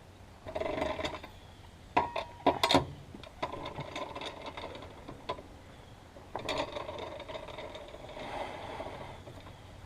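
Hand work on a truck wheel during a tire rotation: sharp metal clicks and knocks, and several stretches of rapid mechanical rattling.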